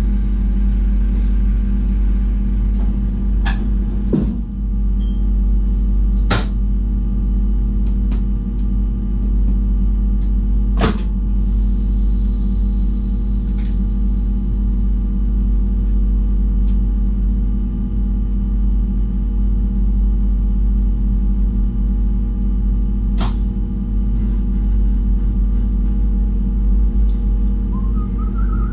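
VIRM double-deck electric train humming steadily at standstill, with a few sharp clicks now and then. Near the end a stepped, rising whine starts as the train begins to pull away.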